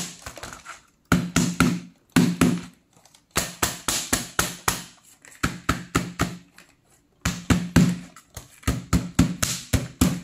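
An ECG-019 corded desk telephone's plastic body banged down hard and repeatedly onto cardboard on a table, a rapid series of heavy knocks in several bursts with short pauses between them: a drop and impact test of the casing.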